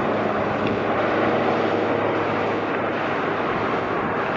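Jet engines of a Boeing 757-200 airliner on final approach to land, a steady rushing jet noise with a faint low hum.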